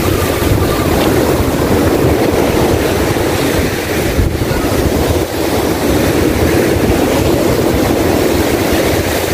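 Rough sea surf breaking and washing up the sand in a continuous loud rush, with wind buffeting the microphone.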